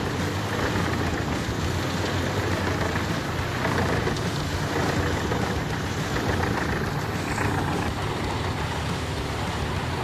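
Wood chipper running steadily: a low engine hum under a dense, continuous rushing noise.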